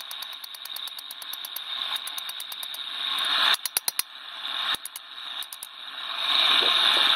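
Steady hiss of a forge burning, with quick runs of light metallic ticks and a few sharper hammer strikes on leaf-spring steel at the anvil, mostly a little past the middle. The hiss grows louder near the end as the steel goes back into the forge.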